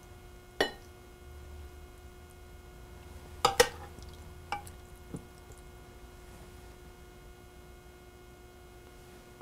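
A metal serving spoon clinks a few times against a ceramic plate, with soft wet sounds, as pieces of stewed lamb and prunes are set onto rice. The loudest is a quick double clink about three and a half seconds in, and a faint steady hum runs underneath.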